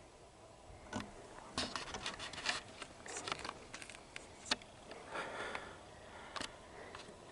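Close handling noise: rustling and scraping of clothing and gear, with a few sharp clicks and knocks.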